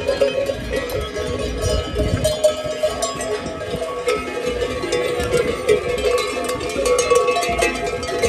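Cowbells on a herd of walking cattle clanking and ringing without a break, many bells overlapping at once.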